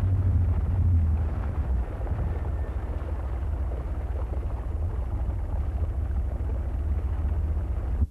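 Boat engine running steadily under way, a continuous low rumble heard from aboard.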